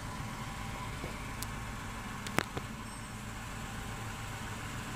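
Car engine idling steadily in Park with a faint, very low-pitched whistling noise over it, which the owner takes for a potential problem with the car. A single sharp click sounds about halfway through.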